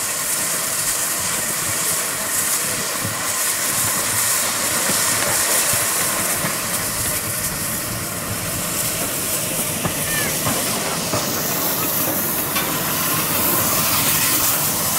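Hunslet Austerity 0-6-0 saddle-tank steam locomotive moving slowly along the track with a steady hiss of escaping steam.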